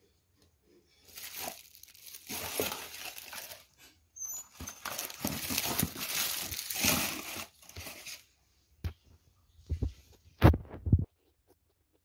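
Brown kraft packing paper crumpled and rustled against a cardboard box in two long spells, followed by a few short knocks near the end.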